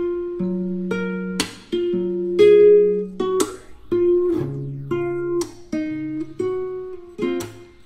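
Background music: acoustic guitar playing strummed chords, a new strum about once a second.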